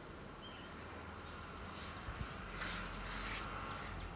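Quiet outdoor ambience with faint insect chirring and a few brief chirps, and a few soft knocks in the second half.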